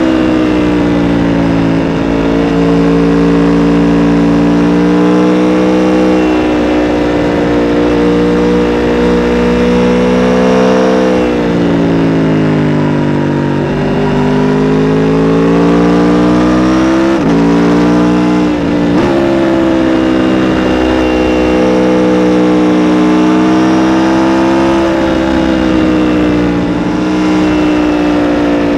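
2017 Aprilia RSV4 RR's V4 engine running through its stock exhaust. The engine holds a steady pitch for long stretches, and twice in the middle the pitch falls and then climbs back up.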